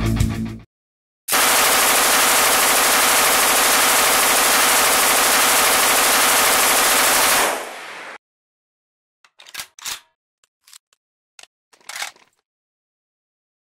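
MG-34 machine gun firing one long continuous burst of about six seconds, its rapid shots running together into one steady rattle. This is followed by a few sharp metallic clacks from the gun being reloaded.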